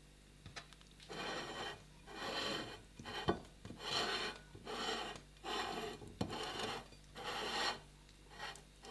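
Food grated by hand against a kitchen grater in about six even rasping strokes, each under a second, with a few light clicks between them.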